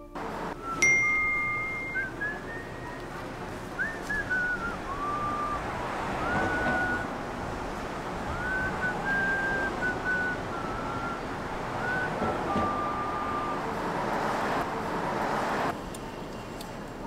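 A person whistling a slow tune, held single notes with small slides between them, over steady outdoor background noise that swells near the end and then cuts off suddenly. A short high tone with a click sounds about a second in.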